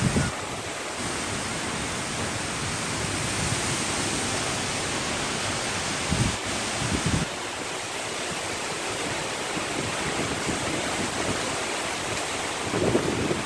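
Heavy thunderstorm downpour: a steady, loud hiss of rain, with a few brief gusts of wind buffeting the microphone.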